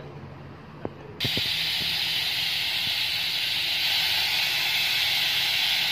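After a couple of short knocks, a loud, steady rush of compressed air starts abruptly about a second in and keeps going, as the control valve of a newly installed air-over-oil hydraulic car-wash lift is opened.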